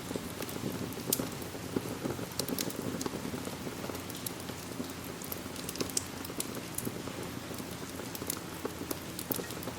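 Steady rain falling, a continuous hiss with many sharp ticks scattered through it.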